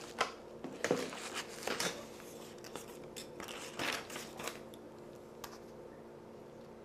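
Light clicks, taps and crinkly rustling of hands handling laptop screen parts and tape, scattered over the first four and a half seconds, then only a faint steady hum.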